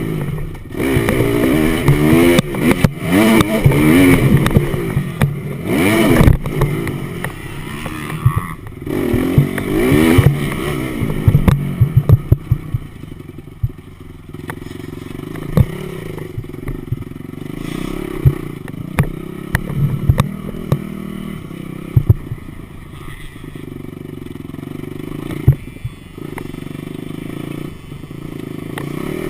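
Motocross bike engine being ridden hard, its pitch rising and falling over and over through the first dozen seconds, then running lower and steadier. Sharp knocks and clatter are scattered throughout.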